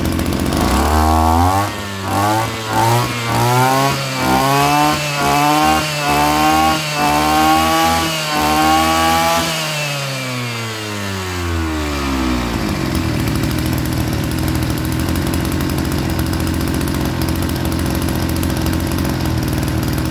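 Kioritz (Echo) 34cc two-stroke brush cutter engine revved hard from idle about a second in. It surges and dips in pitch through a run of throttle blips, about one a second, then winds back down to a steady idle about two-thirds of the way through.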